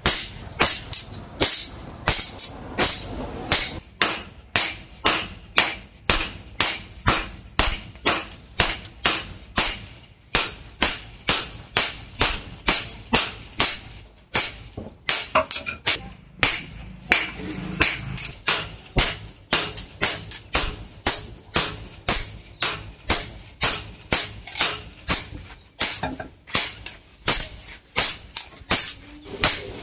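Hand hammer striking a cold steel machete blade on a steel stake anvil, a steady run of ringing metallic blows about two a second.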